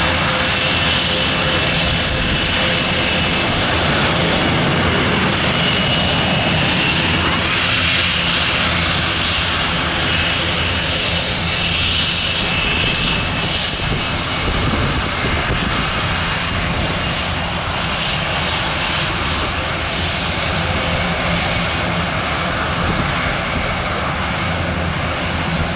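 Military aircraft taxiing: first the turboprops of an Airbus A400M, then Panavia Tornado jets' twin RB199 turbofans. The engine noise is loud and steady with a continuous high whine, easing slightly about halfway through.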